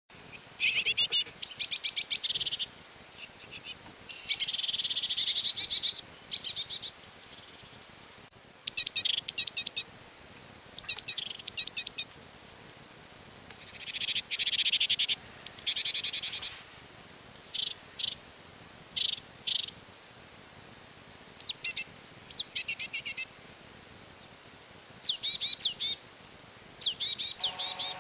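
Great tit calling: a dozen or so short bursts of rapid, high-pitched ticking notes, every one to two seconds, with a few longer buzzy rasps among them.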